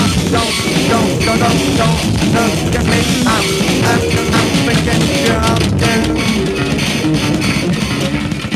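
Rock band music: electric guitar over drums, loud and continuous.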